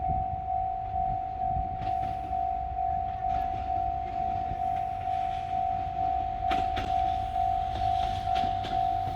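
Japanese level-crossing warning bell ringing a steady, evenly repeating ding over the low rumble of a KiHa 185 series diesel train. From about six and a half seconds in, sharp clicks of the train's wheels over the rail joints join in as it reaches the crossing.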